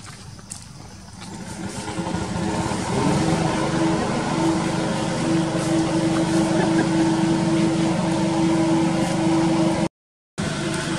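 A motor engine running. It grows louder over the first two seconds, then holds a steady hum. The sound drops out for a moment near the end.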